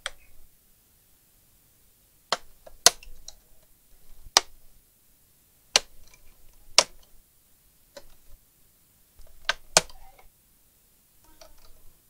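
Plastic clips of an Asus all-in-one computer's case snapping as the case is pried apart by hand: about seven sharp, irregularly spaced clicks, with faint plastic scraping between them.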